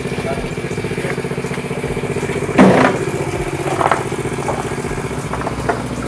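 A small engine idling steadily, with a sharp knock about two and a half seconds in and two lighter knocks after it.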